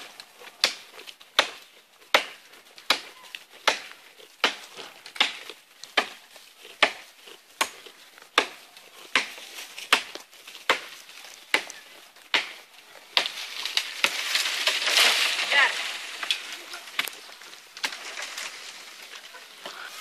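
Steady, sharp chopping strokes, about four every three seconds. A hissing noise swells for a few seconds past the middle.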